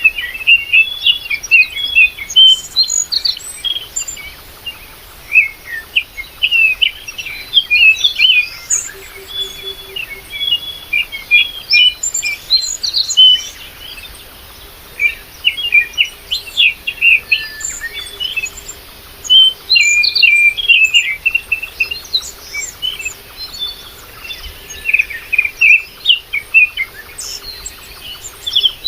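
Several small birds chirping and twittering in a busy chorus of short, high calls that overlap and never let up.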